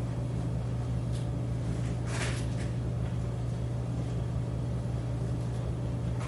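Steady low machine hum, like a projector or ventilation fan. About two seconds in there is a brief scratch of a pen writing.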